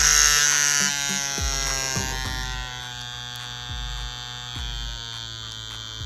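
Mast Fold 2 pen tattoo machine running with a needle cartridge fitted, its motor giving a steady electric buzz. As the voltage is stepped down from 12 volts, the buzz drops slightly in pitch and grows quieter over the first few seconds, then holds steady.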